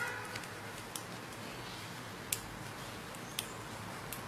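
Knitting needles clicking lightly now and then as purl stitches are worked, a few separate ticks over a steady low hum and hiss.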